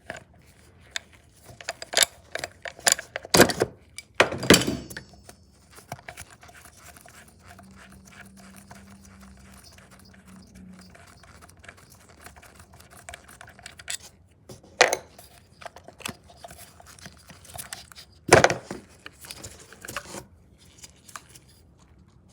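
Irregular clicks, knocks and scraping of metal hand tools and engine parts being handled. There is a cluster of loud sharp knocks a few seconds in and two more single knocks later, with a brief low hum in the middle.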